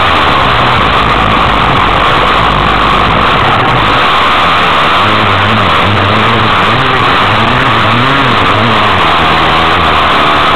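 Dirt bike engine running under a steady rush of wind noise on the microphone, its pitch rising and falling repeatedly in the second half as the throttle is worked through the turns.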